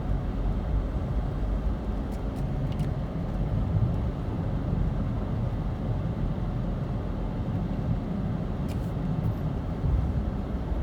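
Steady low rumble of a small front-wheel-drive car driving on a snowy road, heard from inside the cabin, with a few faint clicks.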